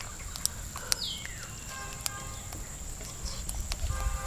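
Chickens calling in the background, one call falling in pitch about a second in, with a few light clicks scattered through.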